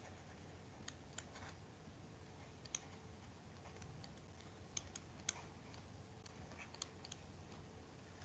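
Faint, irregular small clicks and taps, about a dozen scattered through, over a low steady background hum.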